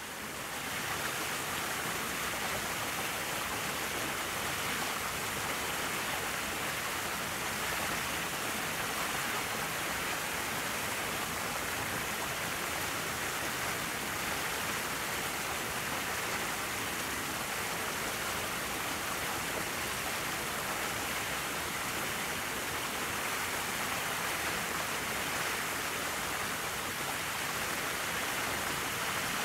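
Steady hiss of falling water, even and unbroken throughout.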